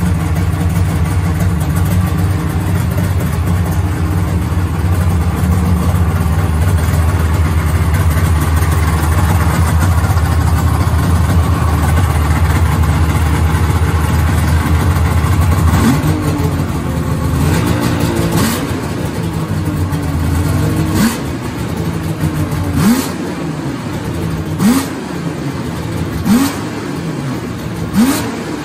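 Polaris XCR 800 snowmobile's three-cylinder two-stroke engine running at a steady idle just after starting. From a little over halfway in it is revved in about six short throttle blips, each rising quickly and dropping back.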